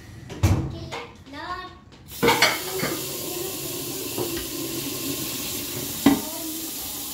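Plates and cutlery clinking, then a tap turned on about two seconds in, with water running steadily into a sink and more dishes clinking, one sharp clink about six seconds in.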